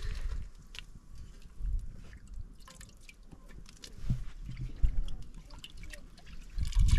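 Liquid dripping and trickling, with scattered small clicks and low knocks, the loudest cluster near the end.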